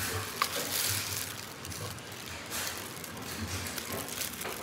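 Oiled knife cutting through soft, sticky steamed pandan layer cake: faint squishing and slicing, with a light tap about half a second in.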